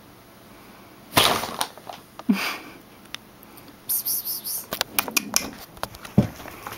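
Brown paper shopping bag rustling and crinkling in several short bursts, with a loud rustle about a second in and a run of sharp crackles around four to five seconds in, as a cat shifts about inside it.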